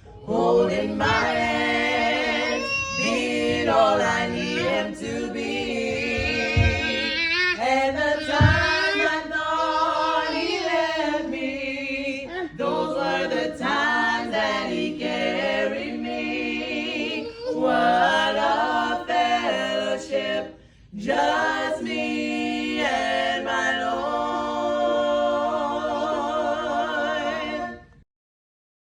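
Vocal ensemble singing a gospel song a cappella in harmony, without instruments; the singing cuts off abruptly near the end.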